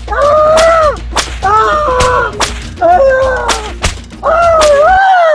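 A whip lashing again and again, sharp cracks about every half second to a second, over long wailing cries of pain.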